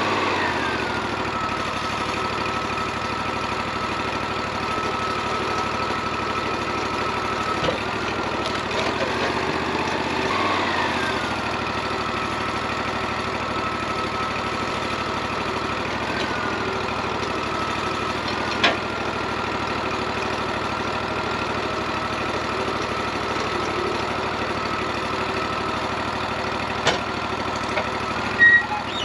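Wood-Mizer LT40 band sawmill running steadily: a low engine note under a steady high whine, which drops into place in the first second and wavers briefly a few times. A few sharp clicks or knocks stand out, two of them near the end.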